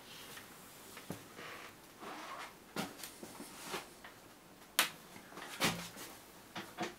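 Scattered knocks and clicks, about half a dozen, from someone moving about in a small room, with the loudest knock about two-thirds of the way through.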